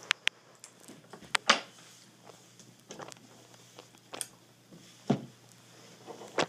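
Irregular light clicks and knocks of metal forks and hands against a wooden table, about eight in all, the loudest about a second and a half in.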